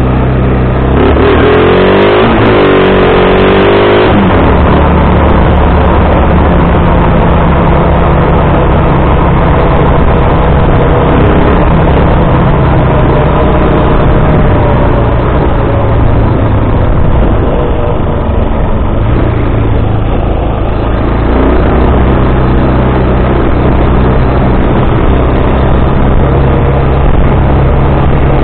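Bashan 250 quad's engine running under way, its revs rising and falling quickly between about one and four seconds in, then pulling at fairly steady revs with small changes in pitch.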